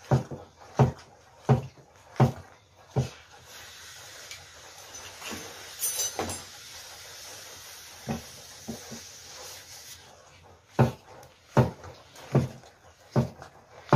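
A wooden stick knocking and scraping against a metal cooking pot as flour is stirred in, in regular thuds a little under one a second. For several seconds in the middle there is a steady hiss instead.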